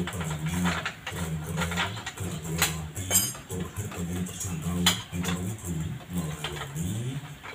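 Metal clinks and taps from a steel motorcycle exhaust muffler being fitted to the bike, three sharper knocks standing out in the middle, over a low wavering hum.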